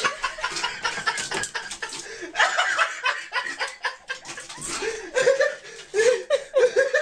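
A person laughing in short chuckles, mixed with repeated knocking and rattling as a cat rummages among bottles in a cupboard.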